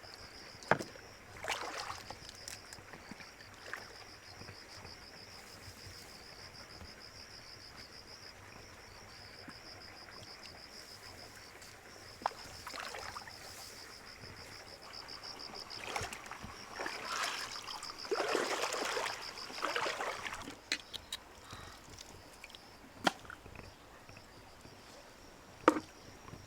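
Water sloshing and splashing in uneven surges, briefly about two seconds in and again from about twelve to twenty seconds, over a steady high pulsing insect drone. A few sharp clicks stand out, the loudest near the start and near the end.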